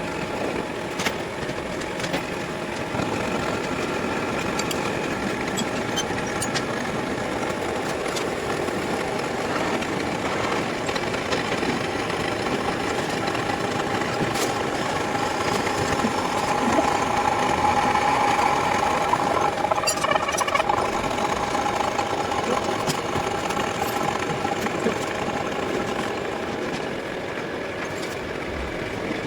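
A machine tool running steadily, with a higher tone that swells for a few seconds past the middle and a few sharp clicks.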